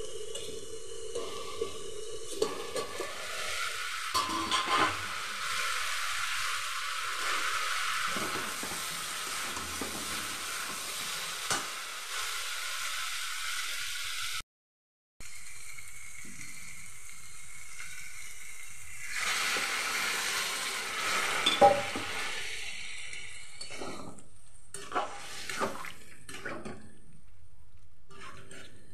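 Green jackfruit and potato curry sizzling in a steel kadai, with a metal spatula stirring and scraping the pieces and clinking against the pan, most often in the second half.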